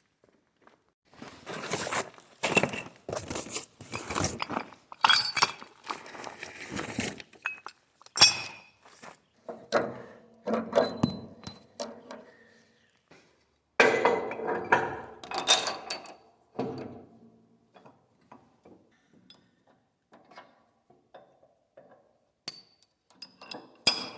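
Metal parts and tools clinking and knocking in irregular clusters, some hits ringing briefly, with quiet gaps between them.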